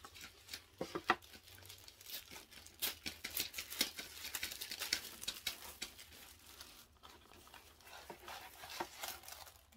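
A few light knocks as a cardboard gift box is handled and opened about a second in, then tissue paper rustling and crinkling as it is unfolded by hand, busiest in the middle and thinning out near the end.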